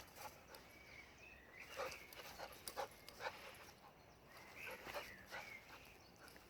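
Akita dog whining softly: two short high whines about three seconds apart, with scattered light ticks and taps.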